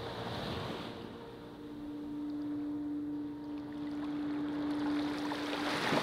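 Ocean waves washing in, swelling near the start and again towards the end, with a single held note of soft background music underneath.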